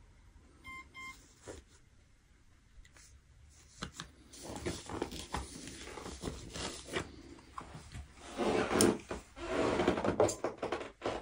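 Two short electronic beeps from a device being switched on, about a second in, followed by rustling, clicks and knocks as equipment is handled, loudest near the end.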